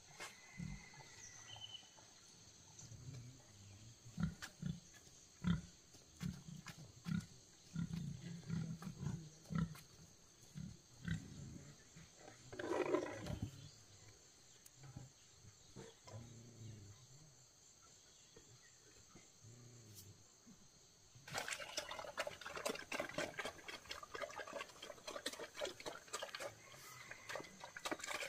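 Pigs grunting with short, low, repeated grunts and one longer squeal about halfway through. About three quarters of the way in, a steady wet splashing sound full of small clicks starts suddenly.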